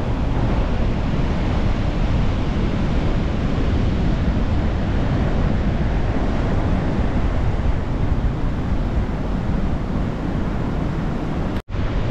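Sea waves breaking and surf washing up the beach in a steady rush, with wind buffeting the microphone. The sound cuts out for a moment near the end.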